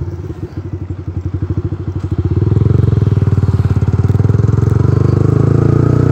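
Yamaha R15 V3 motorcycle's single-cylinder engine running under way with a steady pulsing beat, getting clearly louder about two seconds in and holding there.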